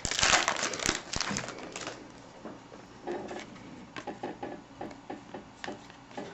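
A trading-card pack wrapper crinkling as it is torn open, loudest in the first two seconds. Then soft ticks and taps of the cards being handled and shuffled.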